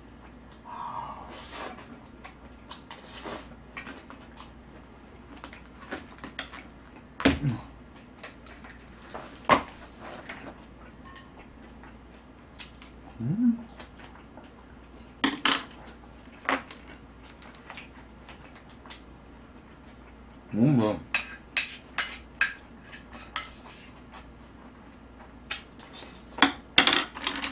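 Chopsticks and a spoon clicking and scraping against plates and bowls while eating, in scattered, irregular taps.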